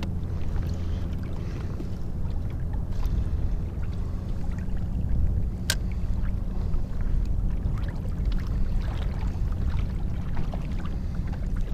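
Steady low rumble of wind and water around a kayak drifting on choppy open sea, with small splashes and knocks against the hull and one sharp click about six seconds in.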